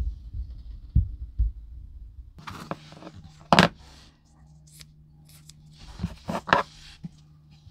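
Short scrapes and light clicks of small hard parts being handled, with two sharp knocks in the first second and a half; a low steady hum comes in about two and a half seconds in.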